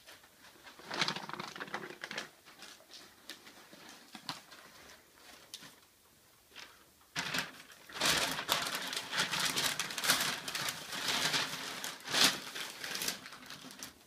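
Masking paper taped over a ceiling fixture crinkling and rustling as it is handled by hand, in a run of irregular crackles that is loudest during the second half.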